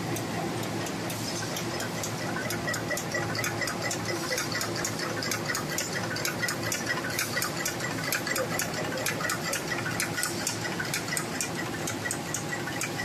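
Sharp-bottom paper bag making machine running at production speed, about 256 bags a minute. A steady mechanical hum with a fast, regular clicking of about four clicks a second.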